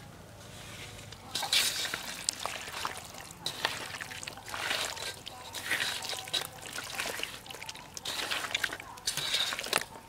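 A hand squishing and kneading raw quail in a wet spice-and-onion marinade in a large metal bowl: irregular wet squelches and slaps, starting about a second in.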